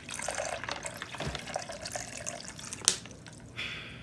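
Water running off-camera, stopping about three seconds in, with a sharp click just before it stops.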